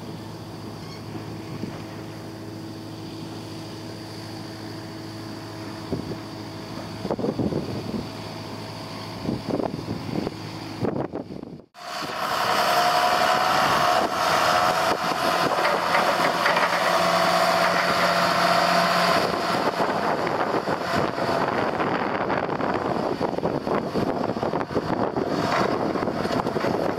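A steady machine hum with a few knocks and rattles, then after a sudden cut a John Deere front-loader tractor's diesel engine running close by, louder, with a whine over it and wind on the microphone.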